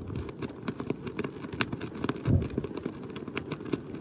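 Wind buffeting the microphone: an uneven low rumble with scattered crackles, and a louder low thump a little past halfway.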